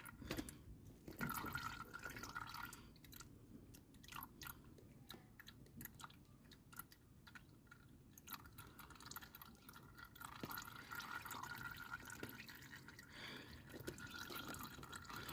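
Faint dripping and scattered light clicks as the last of the old engine oil drains from the open sump of a Honda CBR125R into a milk carton, the oil nearly run out.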